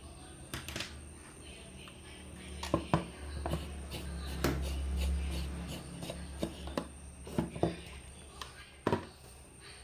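Metal tweezers clicking and tapping against a small LED circuit board in irregular light ticks, over a low steady hum.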